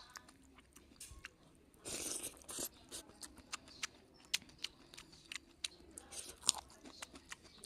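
Close-up mouth sounds of a person eating: chewing with many small sharp crunches and clicks, and a louder crunchy bite about two seconds in.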